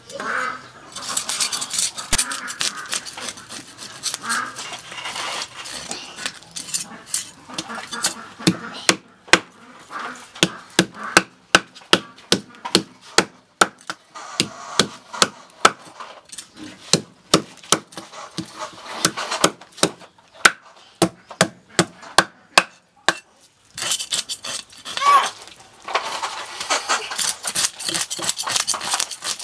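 Steel cleaver scaling a whole fish on a wooden chopping board. It rasps at first, then about eight seconds in gives way to a long run of sharp knocks, roughly two a second, as the blade strikes the fish and board, and near the end it turns back to rasping scrapes.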